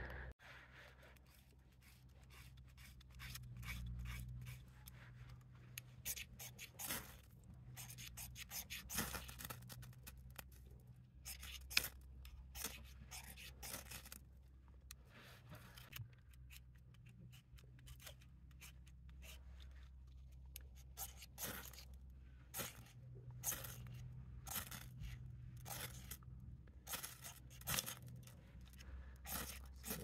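Birch bark being scraped: a series of faint, irregular rasping strokes as it is shaved and struck with a ferro rod for sparks to light it.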